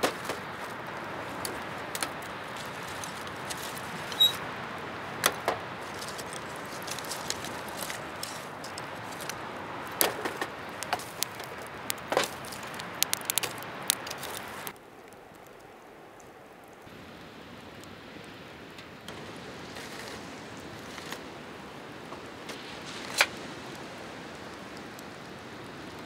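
Wood fire in a fire pit crackling, with sharp irregular pops over a steady hiss. The hiss drops suddenly about fifteen seconds in, and the pops carry on more sparsely after that.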